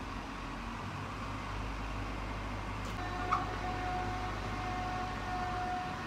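Roll-down window shutter's motor starting about halfway through with a click, then running with a steady whine as the slats roll up, over a steady low background hum.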